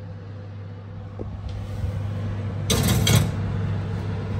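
Cast-iron skillet set onto a metal oven rack: a short rattle of clanks about three seconds in, over a steady low hum.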